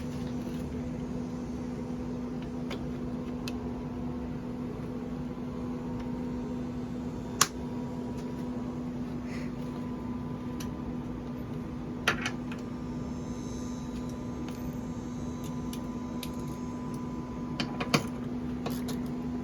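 A steady low hum throughout, with a few sharp clicks and taps of tools working on a car door's latch striker, three of them standing out about a third, halfway and near the end.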